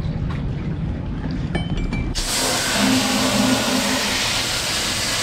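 A water hose sprays into a boat's fibreglass anchor locker to rinse it out. The steady hiss of spray starts about two seconds in, after a low rumble of handling.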